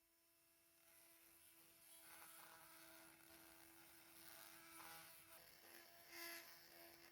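Near silence: a faint steady hum under a thin hiss, growing a little louder over the first two seconds, with a brief faint rustle about six seconds in.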